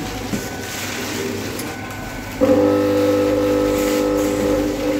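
Snack packaging machine running. About halfway through, a loud, steady hum of several tones sets in suddenly.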